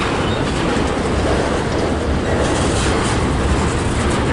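Freight cars of a long, slow-moving manifest train rolling past, a steady rumble of steel wheels on the rails with faint clicking at the rail joints.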